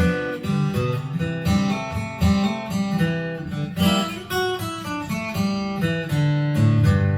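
Instrumental break of a blues song played back through a home speaker: guitar carries the tune, with no vocals.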